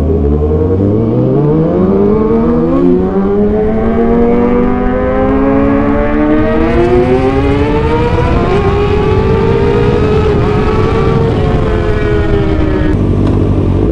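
Kawasaki ZX-6R 636 inline-four motorcycle engine accelerating hard. Its note climbs steadily in pitch for about eight seconds, with two brief dips along the way, then holds high before breaking off near the end.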